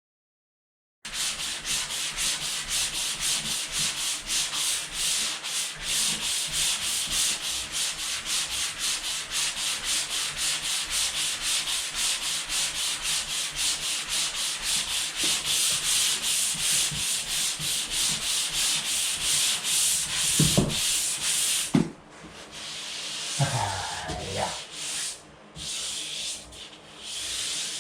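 Drywall joint compound being hand-sanded with quick back-and-forth strokes, about three a second. The sanding stops abruptly near the end, followed by a few knocks and handling noises.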